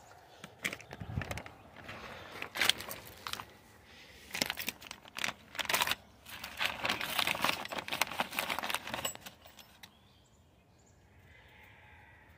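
Small metal brake parts clinking and a plastic parts bag crinkling as new parking-brake springs are handled. Irregular clinks and rustles that stop near the end.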